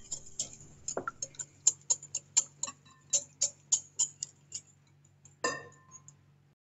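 Wire whisk beating egg, sugar and salt in a glass bowl to dissolve the sugar: quick, even clicks of the wires against the glass, about four a second. The clicking stops after about four and a half seconds, followed by one louder knock.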